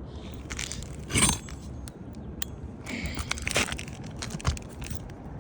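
Nailing an asphalt shingle onto roof decking: one sharp nail strike about a second in, then lighter knocks, clinks and shingle rustling.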